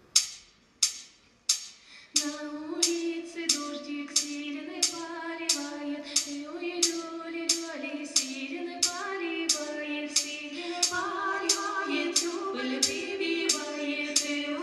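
Three women's voices singing a Russian folk song in harmony over a sharp percussion beat of about one and a half strikes a second. The beat plays alone for about two seconds before the voices come in.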